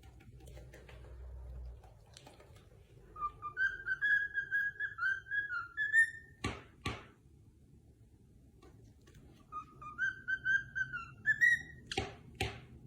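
A pet parrot whistles a short tune of wavering notes that rise at the end, then gives two sharp chirps. The phrase and the two chirps come twice.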